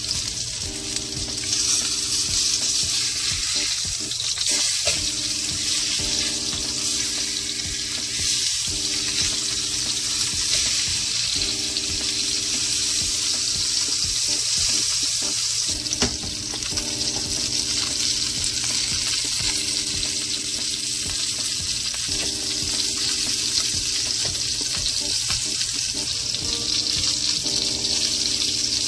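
Salmon fillets searing in hot cooking oil in a sauté pan: a steady sizzle.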